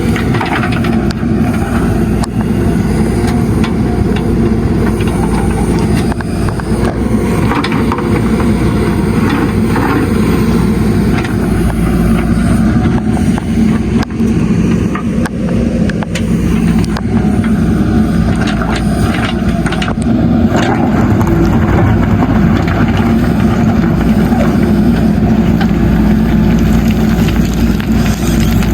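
Diesel engine of a JCB backhoe loader running steadily under load while loading gravel, with the clatter of gravel and knocks of the bucket at intervals.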